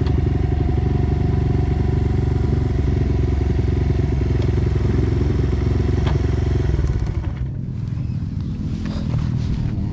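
Dirt bike engine running at a steady pitch, then dropping off about seven seconds in.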